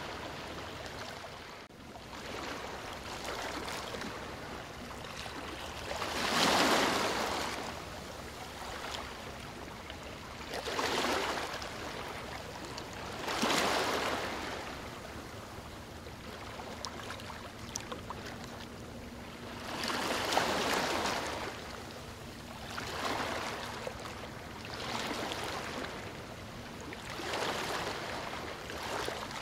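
Small sea waves washing and lapping at the shore, rising and falling in irregular swells every few seconds. A faint steady low hum sounds through the middle stretch.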